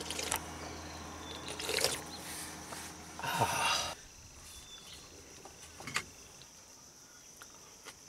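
Steady high-pitched insect buzz over quiet outdoor ambience, with a few brief sipping and handling noises in the first half as a young coconut is drunk from.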